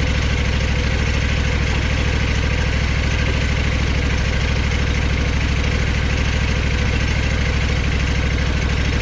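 Portable bandsaw sawmill's engine idling steadily, a low even rumble of rapid regular firing pulses, while the mill sits between cuts.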